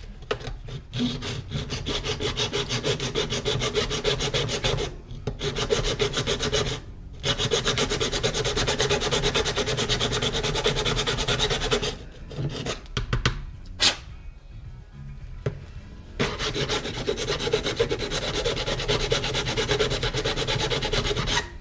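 Hand file rasping back and forth in quick strokes, filing out a square opening in a black plastic bracket piece to fit a rocker switch. The filing comes in several runs, broken by a few short pauses and a longer stop about two-thirds of the way through.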